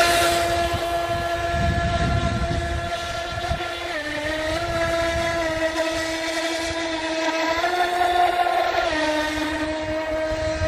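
Feilun FT011 brushless RC speedboat running at speed: a steady high motor whine that steps down a little in pitch about four seconds in and again about nine seconds in.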